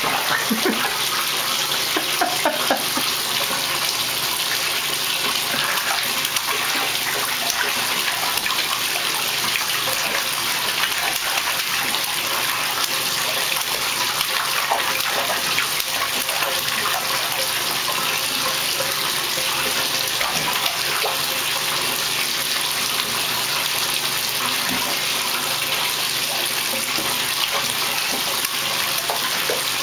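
Bathtub faucet running steadily into the tub, with a baby's hands splashing in the water of a plastic infant bath.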